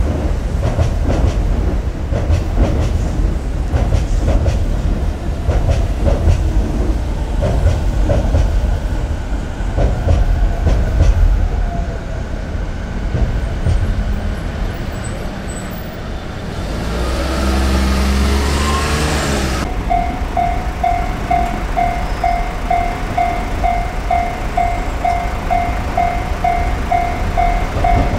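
Trains on the JR Chūō Line running past: wheels clacking over rail joints with a heavy rumble for the first twelve seconds or so, then easing off. An electric train's motor whine climbs in pitch for a few seconds. Over the last eight seconds a level-crossing warning bell rings steadily, about two and a half dings a second.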